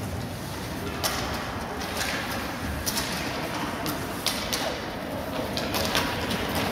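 Ice hockey play: about half a dozen sharp, irregular clacks of sticks and puck over a steady hiss of skates on the ice.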